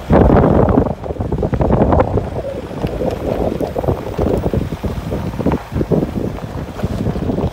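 Wind buffeting the camera's microphone: a loud, uneven, gusting rumble.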